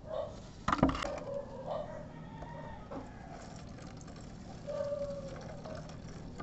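Chickens calling repeatedly, a rooster crowing among them, with one sharp knock about a second in.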